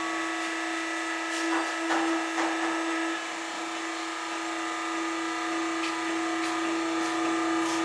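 Pull-test machine's motor running with a steady hum, with a few light clicks and rattles about one and a half to two and a half seconds in.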